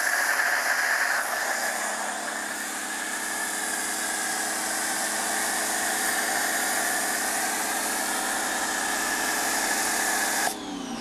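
Adam's Premium Foam Cannon on a pressure washer gun spraying soap foam: a steady hiss over the steady hum of the pressure washer's pump. The spray cuts off about ten and a half seconds in.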